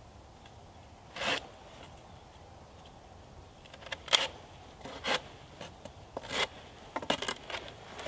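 Small folding handsaw cutting through a wooden pole in short, separate rasping strokes: one about a second in, then a few more about a second apart from about four seconds in.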